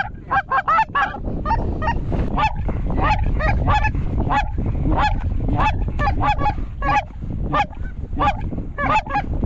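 Rapid goose honks and clucks, two or three calls a second without a break, over a steady low rumble of wind on the microphone.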